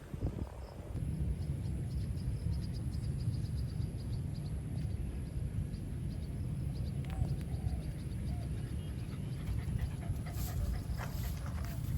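Outdoor rural ambience: a steady low rumble and a thin, steady high tone, with a quick run of high chirps a few seconds in.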